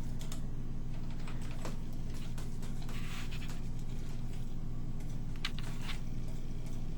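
Scattered clicks of a computer keyboard and mouse, over a steady low electrical hum.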